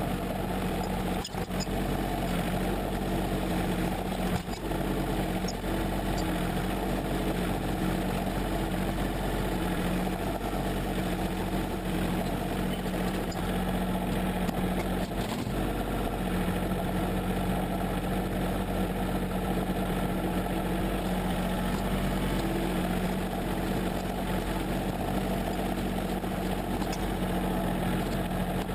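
John Deere 770 compact tractor's three-cylinder diesel engine running steadily while the front loader bucket pushes snow.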